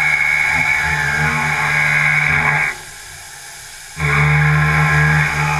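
Gantry milling machine (FOOKE ENDURA 7012LINEAR) roughing steel with a 66 mm high-feed milling cutter: a loud, steady cutting whine over a low hum. It breaks off for about a second just past halfway, then starts again.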